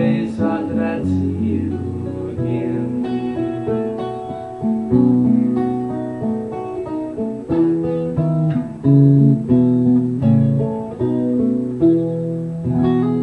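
Solo acoustic guitar playing the song's instrumental outro: picked chords and single notes, then a last strummed chord near the end that is left ringing.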